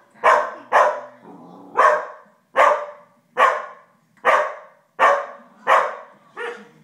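Five-month-old Australian Shepherd puppy barking at the television, about nine sharp barks a little under a second apart, the last one softer.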